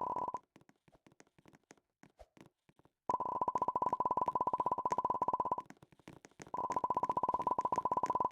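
A steady, high electronic tone with a fast buzzing pulse. It cuts out just after the start, returns about three seconds in, and breaks off briefly near the six-second mark.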